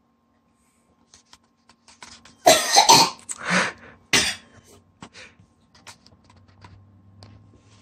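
A boy coughs and sputters three times in quick succession while chugging an extremely sour smoothie, choking on the drink. Small gulping and swallowing clicks come before and after the coughs.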